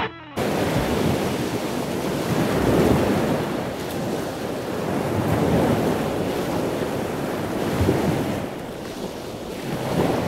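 Sea surf washing onto a beach, swelling and fading every few seconds, with wind buffeting the microphone.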